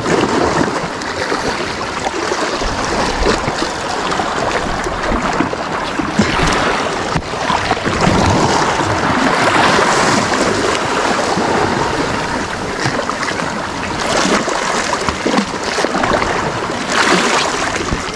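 Small sea waves washing and splashing against shoreline rocks, coming in uneven surges, with wind rumbling on the microphone.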